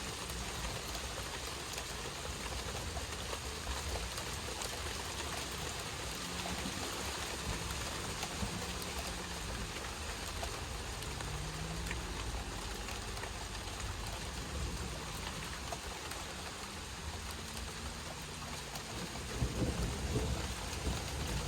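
Steady rain falling, with many separate drops ticking on a surface. A low rumble swells near the end.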